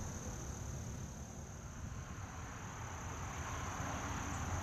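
Outdoor ambience: a steady high-pitched insect trill, like crickets, over a low rumble.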